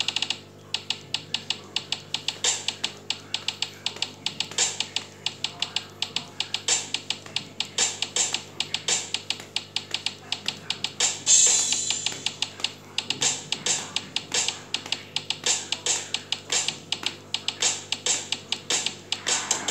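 Drum samples from the Real Drum app on a Samsung Galaxy Note 8, played by tapping the on-screen pads: a quick run of drum hits, several a second, with a cymbal crash about eleven seconds in.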